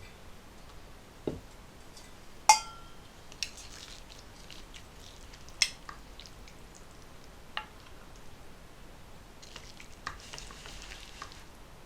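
Scattered light clinks of cutlery against a dish, a few seconds apart, with one sharper ringing clink about two and a half seconds in.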